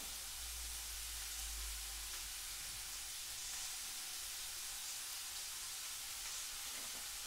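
Pieces of leftover steak frying in a pan: a faint, steady sizzle.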